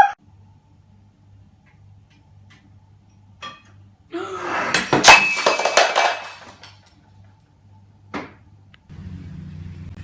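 A clattering crash of objects knocked over or falling, about four seconds in and lasting roughly two seconds, followed by a single knock.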